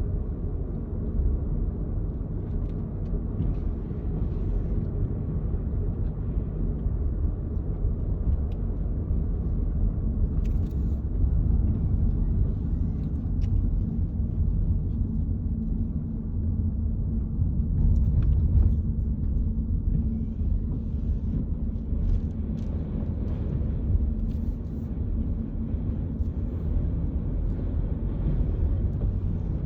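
Storm-force wind buffeting the microphone: a loud, low rumble that swells and eases in gusts, strongest about halfway through.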